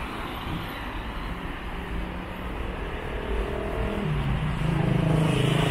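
City street traffic: motor vehicle engines running, with one engine's steady note growing louder about four seconds in.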